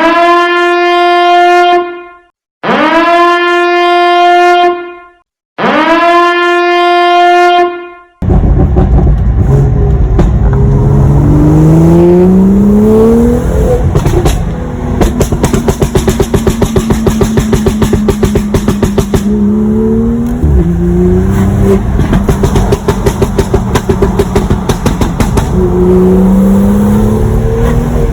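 Three long horn blasts on one steady pitch, each about two seconds. Then a BMW M2's engine and exhaust run loud and rev up several times, with a fast crackle of sharp pops running through the sound from about halfway in.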